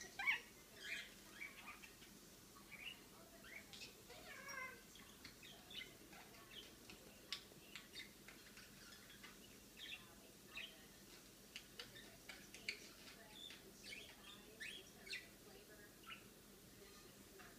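Lineolated parakeet giving soft, short chirps and chatter, scattered irregularly, with a few longer warbling calls near the start and about four seconds in.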